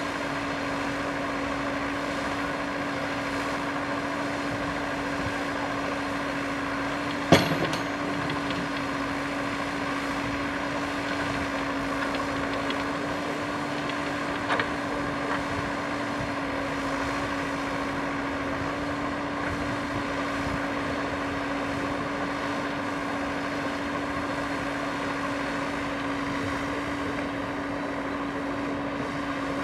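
JCB 3DX backhoe loader's diesel engine running steadily with a constant drone as the backhoe digs and loads earth. A single loud knock about seven seconds in and a lighter one about halfway stand out above it.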